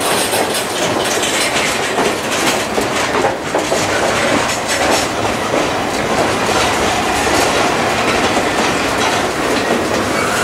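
Empty intermodal well cars of a Norfolk Southern freight train rolling past. Steel wheels rumble and rattle steadily on the rails, with repeated clicks as the wheels cross rail joints.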